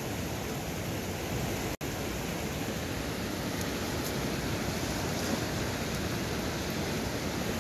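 Steady rushing of a small mountain river flowing over rocks, cutting out for an instant just under two seconds in.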